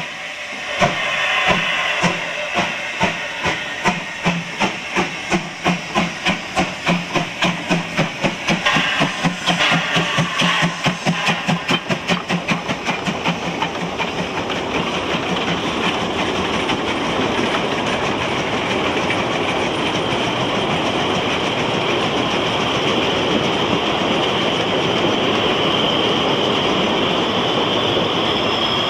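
Narrow-gauge steam locomotive working hard as it pulls its train, its exhaust beats quickening from about two to about four a second, with hissing steam. After about fourteen seconds the beats give way to the steady rolling clatter of the carriages passing on the rails.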